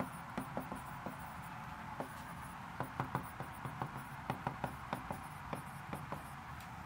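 Stylus writing on the glass of an interactive touchscreen whiteboard: faint, irregular light taps and scratches, a few a second, as each letter is drawn.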